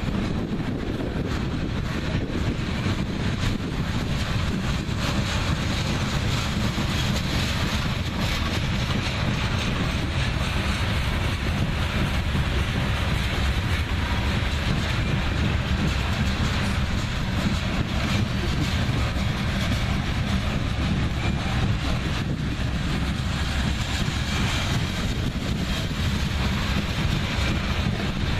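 BNSF freight train rolling past, its cars' wheels running on the rails in a steady rumble, with some wind on the microphone.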